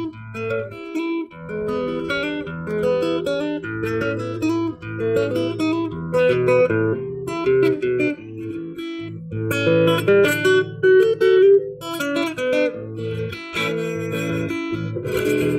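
Acoustic guitar playing an instrumental interlude of an Argentine gato, a plucked melody over changing bass notes with occasional strums.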